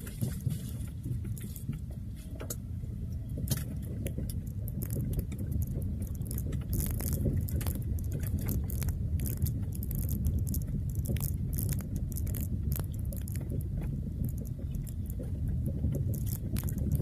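Car driving slowly over a rough, rutted dirt track, heard from inside the car: a steady low rumble from the tyres and engine, with many small clicks and rattles as it jolts over the bumps.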